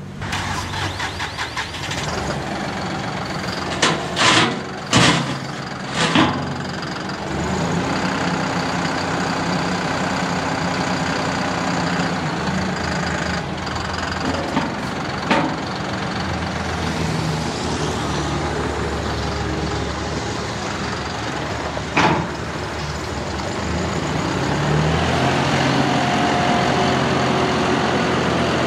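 John Deere 5065E tractor's turbocharged three-cylinder diesel engine running steadily while the tractor lifts its loader and drives. A few sharp knocks come about four to six seconds in and once more later on. Near the end the engine grows louder and rises in pitch.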